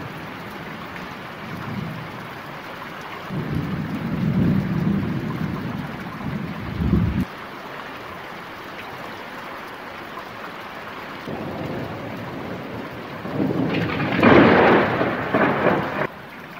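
Steady rain hiss with thunder. A low rumble starts about three seconds in and breaks off suddenly before halfway. A louder, sharper peal of thunder comes near the end.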